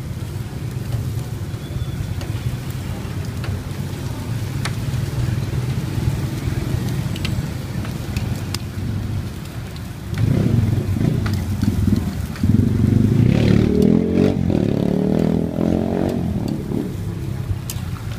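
Steady low rumble of street traffic. From about ten seconds in until about seventeen seconds in, a louder vehicle engine runs close by with a wavering pitch. A few faint clicks can be heard.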